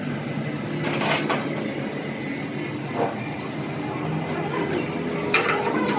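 A few sharp metal clanks, three knocks about two seconds apart, over a steady low machine hum.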